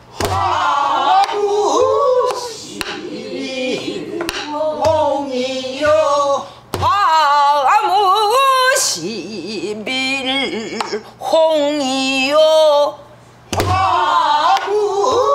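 A woman sings a Namdo folk-song line in a pansori-trained voice, with wide vibrato and sliding pitch and a few short pauses. A buk barrel drum is struck with a stick now and then beneath the singing.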